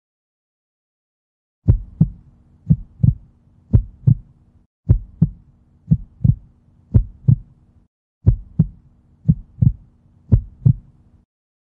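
Looped heartbeat sound effect: low double thumps about once a second over a faint steady hum, starting after a second and a half of silence and repeating in blocks of about three seconds with short breaks.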